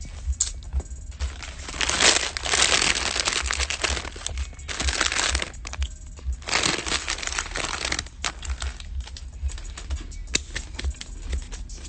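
A plastic snack bag crinkling as it is handled, in three long rustling bursts about two, five and seven seconds in, with scattered sharp clicks and crackles between them.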